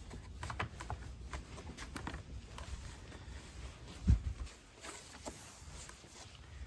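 Scattered light clicks and taps of small generator parts being handled during work on the carburetor, with one low thump about four seconds in.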